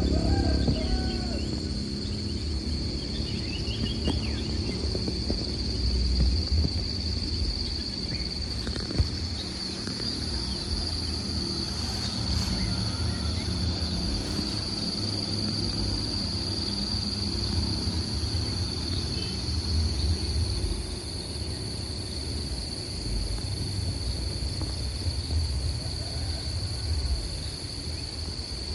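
Insects keeping up a steady high-pitched drone over a low, uneven rumble, with one sharp click about nine seconds in.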